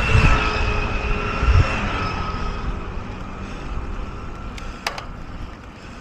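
A motor vehicle going past, its engine drone and whine loudest at first and fading away over about three seconds, with wind rumbling on the microphone and a short click about five seconds in.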